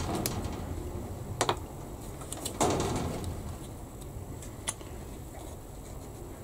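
Grey plastic model-kit sprues being handled, a few sharp clicks as they knock against each other and the cutting mat, with a short rustle about two and a half seconds in.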